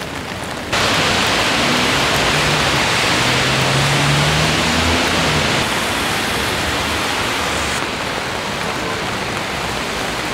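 Steady rain falling on wet pavement and a wet road, an even hiss that jumps louder less than a second in. A low hum is heard for a few seconds in the first half.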